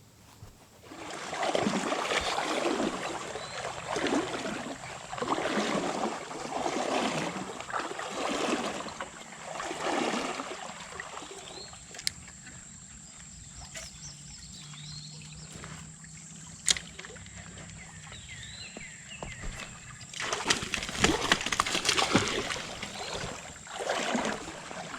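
Legs wading through shallow creek water, each stride a slosh, about one every second or two. The wading pauses for several seconds in the middle and picks up again near the end, over a steady high-pitched whine.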